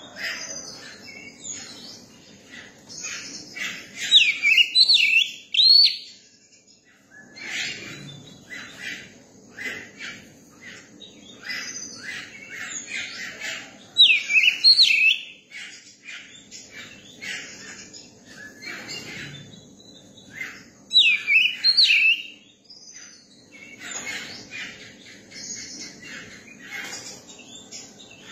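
Young oriental magpie-robin singing: three loud phrases of swooping whistled notes, about seven seconds apart, with softer chirps and twitters in between.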